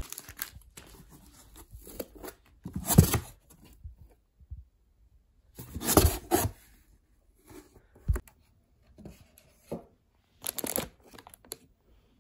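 Plastic produce bags being handled and pulled open, rustling and crinkling in three main bursts with small crackles between.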